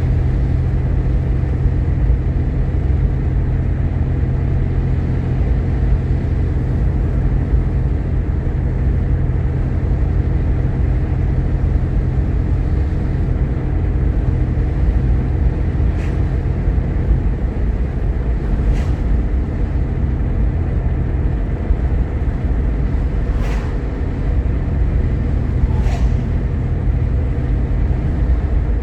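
Road and engine noise inside a moving Jeep Grand Cherokee: a steady low rumble with an even hum. A few faint clicks come through during the second half.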